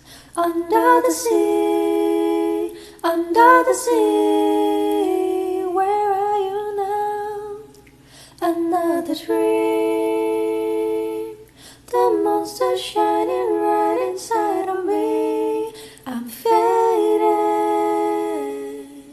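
A woman singing a cappella: five or so phrases of long held notes, some with vibrato, separated by short breaths.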